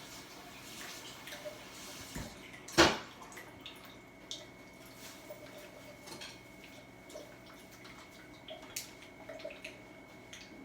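Lemon juice being poured and dripping into a measuring cup, with light kitchen clinks and one sharp knock about three seconds in. A faint steady high tone runs from shortly after the knock.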